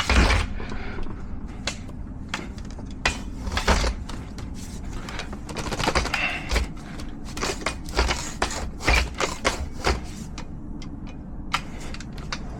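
Irregular knocks and clacks of tools or equipment being handled, a dozen or more scattered strikes over a faint steady low hum.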